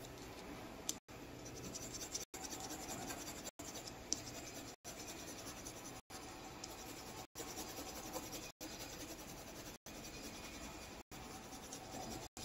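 Faint scratching of a coloured pencil shading on paper.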